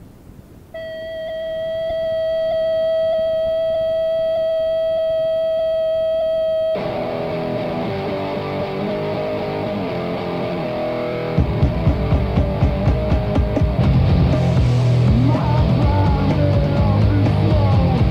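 Start of a punk rock song from a demo cassette: after a moment of faint tape hiss, one steady guitar note is held for about six seconds, then the guitar moves into chords about seven seconds in, and drums and bass come in about eleven seconds in with a fast, driving beat.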